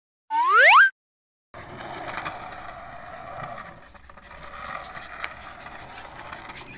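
A short, loud rising whistle-like glide, an editing transition sound effect, then silence for about half a second. After that, skateboard wheels roll steadily over concrete, with a few sharp clicks.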